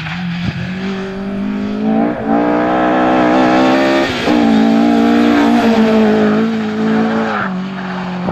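Ford Escort Mk2 rally car's engine revving hard at speed, its pitch jumping up about two and four seconds in and falling back near the end.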